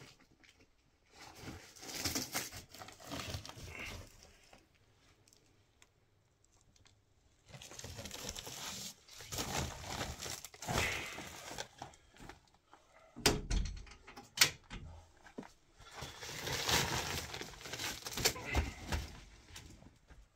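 Rustling and crinkling of something being handled, in three bursts of several seconds each, with two sharp knocks between them.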